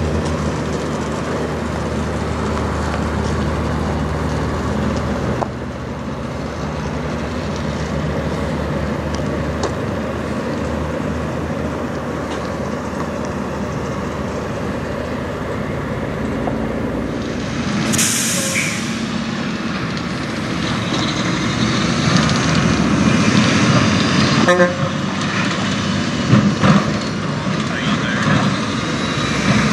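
Diesel engines of Peterbilt semi trucks running as the trucks move slowly, with a short air-brake hiss partway through and road traffic growing louder toward the end.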